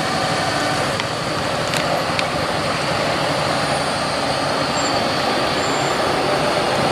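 Tram running on street rails: a steady rolling noise, with a few faint clicks in the first couple of seconds.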